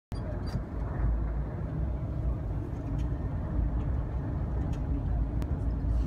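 Off-road bus's engine and drivetrain running steadily, a low rumble heard from inside the passenger cabin, with a few light clicks and rattles.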